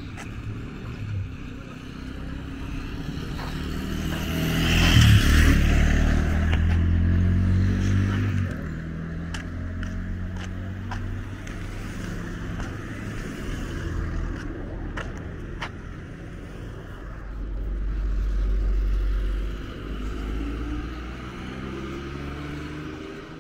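Motor vehicles passing close on a street: an engine is loudest about five seconds in, its pitch sliding as it goes by, another low engine rumble swells later, and an engine speeds up near the end. A few sharp clicks sound in between.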